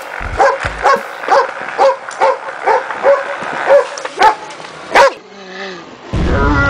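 A dog barking repeatedly, about a dozen sharp barks at a little over two a second, the loudest about five seconds in. It is followed by a softer drawn-out whine and, near the end, a loud low rumbling noise.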